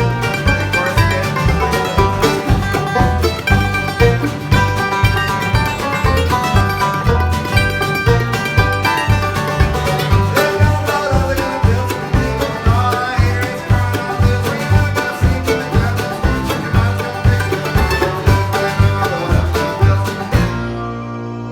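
A band playing an up-tempo song with plucked strings over a steady bass beat; near the end the rhythm stops on a held low note that rings on and fades.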